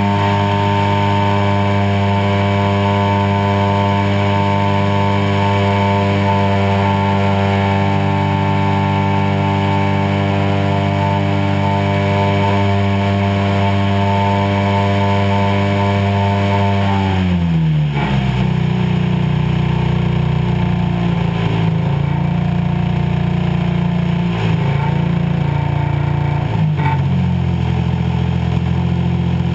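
DA-100 twin-cylinder two-stroke gasoline engine of a 40% scale Super Cub RC float plane, heard close up from on board, running steadily at high throttle during the climb after a water takeoff. About 17 seconds in it is throttled back: the pitch drops sharply and it runs on at a lower, less even speed.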